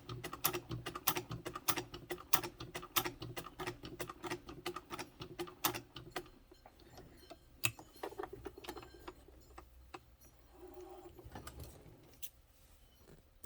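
1911 Singer 66 sewing machine stitching as its hand wheel is turned by hand: rapid mechanical clicking from the needle and feed mechanism, several clicks a second for about the first half, then slower, scattered clicks that die away near the end.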